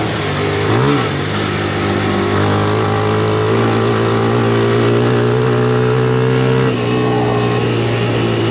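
Honda CG 160 Start motorcycle's single-cylinder four-stroke engine running at a steady speed while being ridden. The engine note eases a little about seven seconds in.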